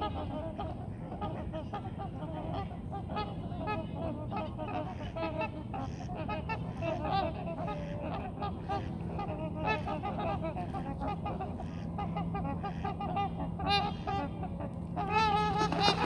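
A flock of trumpeter swans calling, many short, horn-like honks overlapping. About a second before the end the calls grow louder over a rushing, splashing noise as a group starts its takeoff run, wings beating and feet slapping the water.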